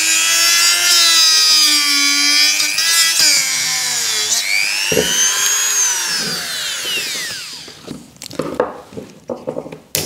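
A power tool's motor whines as it saws through a washing-machine drain pump's impeller, the pitch wavering under load. About halfway through the whine rises briefly, then winds down and stops, followed by a few light clicks and knocks of handling.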